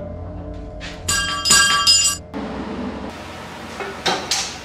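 Metal clinking with a bright, lingering ring, two strikes close together about a second in, followed by a few fainter knocks near the end.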